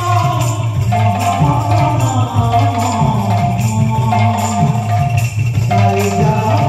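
Kirtan ensemble playing an instrumental passage: held reed-organ notes over a drum with pitch-bending strokes and steady, evenly spaced clashes of hand cymbals.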